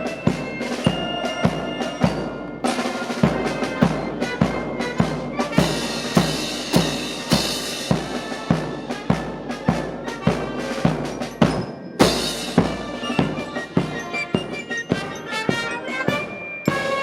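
Military marching band playing a march: bass and snare drums on a steady beat of about two strikes a second, with pitched melody instruments on top.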